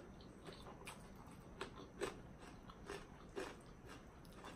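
Faint chewing of food, with irregular soft crunches and mouth clicks several times a second.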